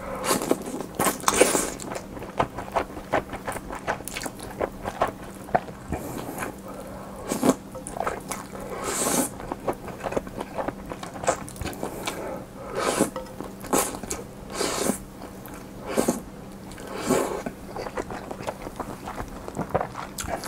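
Close-miked eating: a person biting and chewing food, with irregular wet clicks and louder bursts every second or two.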